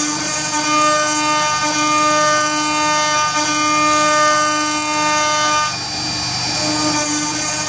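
CNC router spindle at 18,000 rpm driving a single-flute carbide endmill through aluminium plate, cutting a round pocket: a steady cutting whine made of evenly spaced ringing tones, easing briefly about six seconds in.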